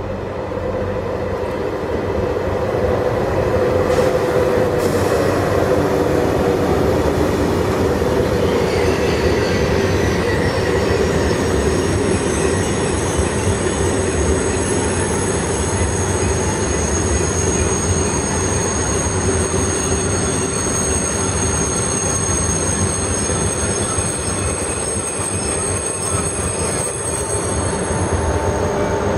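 A TGV high-speed train rolling past: a steady rumble and rush of wheels on rail that swells over the first few seconds and then holds. A thin, high-pitched squeal joins about twelve seconds in and continues.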